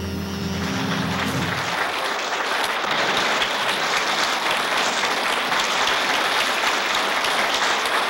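The jazz band's final held chord dies away about a second and a half in, and the audience breaks into steady applause.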